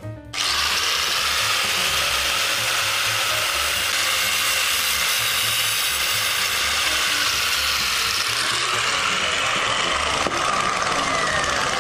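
Angle grinder coming on abruptly and running steadily, its abrasive disc cutting through the 3 mm steel cable of a freight-elevator hoist at the winch drum.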